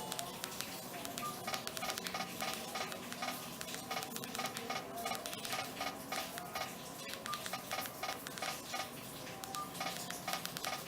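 Nokia 105 feature phone keypad being pressed over and over: short electronic key beeps, a few per second, each with a small button click.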